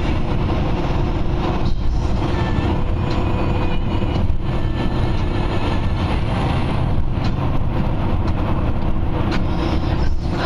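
Steady engine and tyre rumble heard from inside a moving vehicle.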